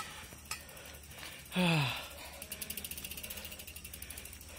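Bicycle freewheel hub ticking rapidly as the bike is pushed along, starting about two and a half seconds in. A brief falling vocal sound comes just before the ticking.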